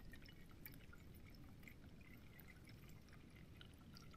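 Faint trickle and drips of water poured from a bottle into a small camping cook pot, over a low wind rumble.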